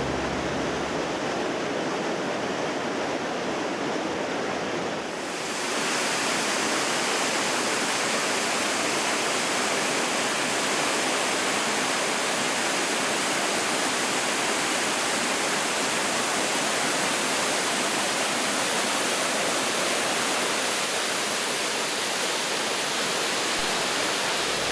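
Waterfall: the steady rush of falling water, growing brighter and fuller about five seconds in.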